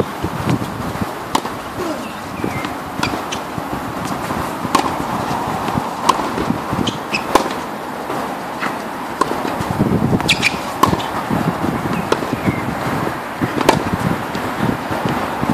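Tennis balls being struck by a racket and bouncing on a hard court during a groundstroke rally: sharp knocks every second or two, over a low rumble of wind on the microphone.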